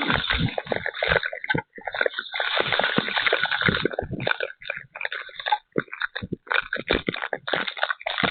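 Heavy rainstorm downpour: water pouring and splashing, in choppy, uneven gusts with many small irregular hits.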